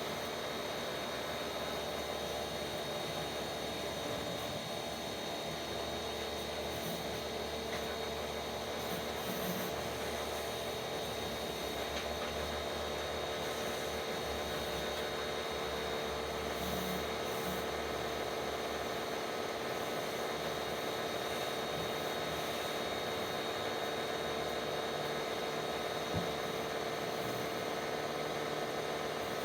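Pressure washer running steadily, its motor and pump humming under the hiss of the water spray.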